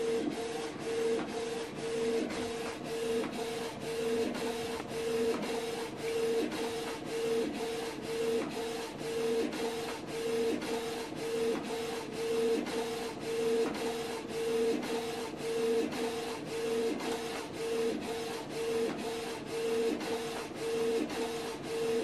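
Canon PIXMA MG2551S inkjet printer printing its print head alignment page: the print head carriage shuttles back and forth in an even rhythm of about two passes a second, with a steady motor whine.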